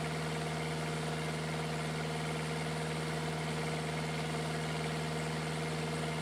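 Kubota V2203 four-cylinder diesel engine running steadily at high speed, its pitch and level unchanging.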